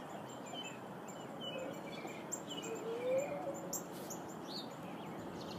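Faint birds chirping in the background, short repeated chirps over a steady low hiss of room noise, with a faint rising sound about three seconds in.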